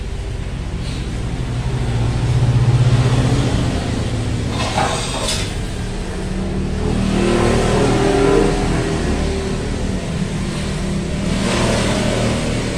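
A motor vehicle's engine running, its pitch rising and falling as it speeds up and slows.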